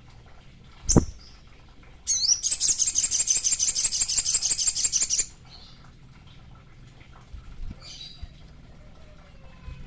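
A sogon, the male in breeding condition, singing a loud, rapid, evenly pulsed high trill for about three seconds, after a single short high call with a knock about a second in.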